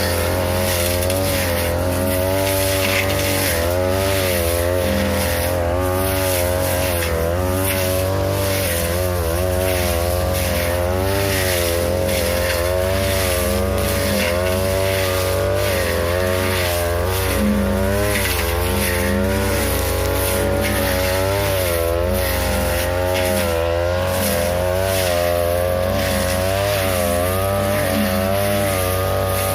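42cc two-stroke brush cutter running at high revs with a blade, its engine note dipping and recovering again and again as the blade bites into tall grass and woody saplings.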